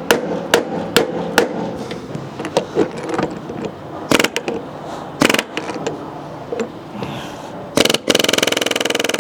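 Hammer blows on a Snapper LT200 riding mower's stuck steering wheel and column, trying to knock it loose. First a quick run of even taps, about two or three a second, then a few heavier single blows. Near the end comes a burst of rapid metallic rattling.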